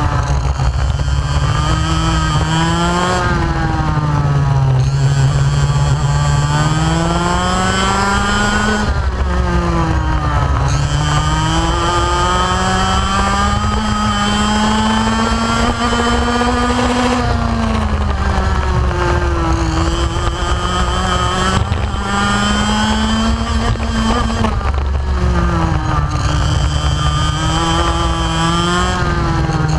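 Onboard sound of a 125cc two-stroke racing kart engine at full throttle. Its note climbs steadily along each straight, then drops sharply and dips each time the throttle is lifted for a corner, about six times over, before picking up and climbing again.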